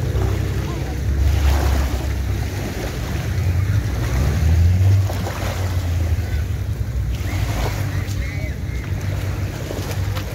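Wind buffeting the phone's microphone in a steady low rumble, over small waves washing in at the edge of a sandy, pebbly beach.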